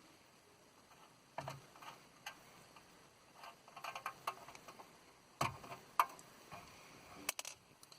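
Scattered light clicks and ticks of a Torx screwdriver turning a screw out of a car radio's casing, the sharpest clicks about two thirds of the way through.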